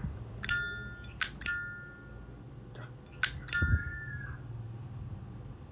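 Zippo-style flip-top lighter's lid flicked open and snapped shut a few times: sharp metallic clicks, the openings ringing with the lighter's clear metallic ping.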